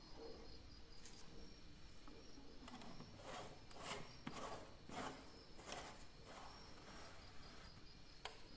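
White plastic screw-on lid being twisted onto a plastic container: a run of faint scraping rubs, about six, in the middle. A faint steady high-pitched chirping, like a cricket, runs underneath.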